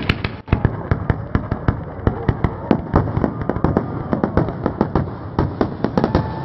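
Fireworks display: a rapid run of sharp bangs and pops from aerial shells bursting, several a second.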